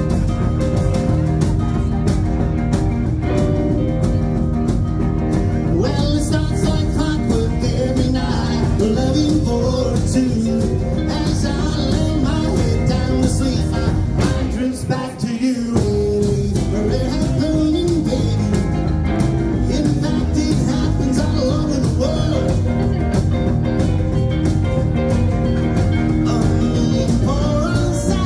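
Live rock and roll band of electric guitars, bass and drum kit playing a song loudly, with a short stop in the band about halfway through before it comes back in.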